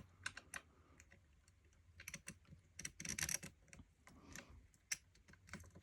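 Plastic fidget cube being worked in the hand: scattered small plastic clicks and rattles, with a quick cluster of clicks about three seconds in.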